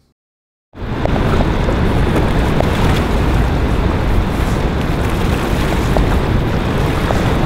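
Strong wind buffeting the microphone: a loud, steady rush heavy in the low end. It starts abruptly after a brief moment of silence.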